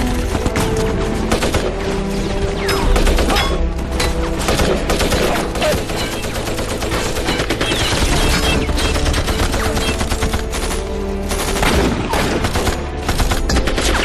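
War-film battle soundtrack: dense, continuous rifle and machine-gun fire, with an orchestral film score held underneath.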